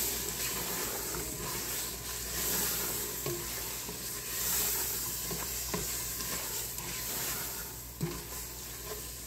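A plastic spoon stirring and scraping diced ham through a thick butter-and-flour roux in a large pot while the roux sizzles steadily as it fries. A few light knocks of the spoon against the pot come through.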